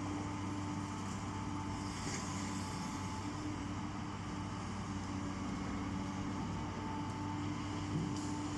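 Diesel engine of a demolition machine running steadily at constant speed, with brief crackles about two seconds in and again near the end.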